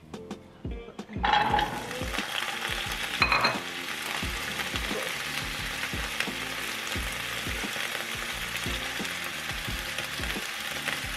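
Food sizzling in a hot pan, starting suddenly about a second in and then holding steady, with a brief louder moment about three seconds in. Faint background music with a steady beat underneath.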